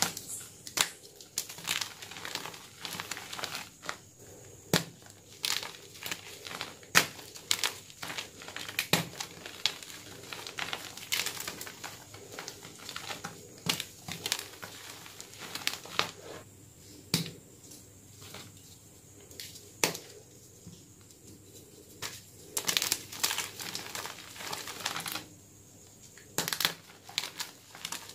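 Homemade gym chalk blocks being crushed and crumbled in bare hands. The blocks give irregular sharp cracks and crunches as they break apart, with a couple of quieter pauses.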